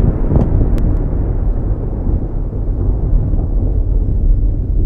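Thunder rumbling, a deep continuous low rumble from a lightning storm, with a couple of faint sharp clicks under a second in.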